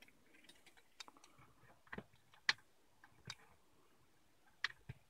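A few faint, scattered clicks and light taps from handling a small toy RC helicopter and its transmitter, the helicopter being set down on a tabletop.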